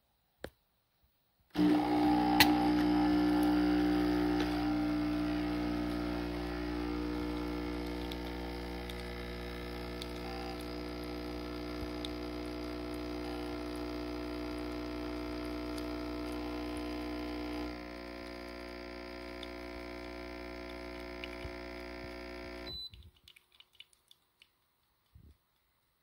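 JASSY 20-bar capsule espresso machine: a click, then its pump starts buzzing as it brews, a steady hum that drops in level about two-thirds through and cuts off sharply near the end, leaving a few faint drips.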